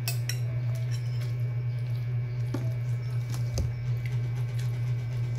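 Steady low hum throughout, with scattered faint clicks and soft wet smacks from a baby handling and mouthing a piece of sticky rice cake.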